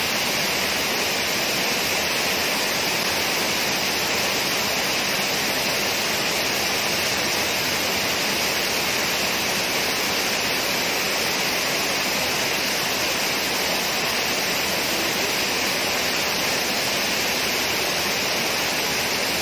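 Water pouring over a low concrete weir: a steady, unbroken rush of falling and churning water.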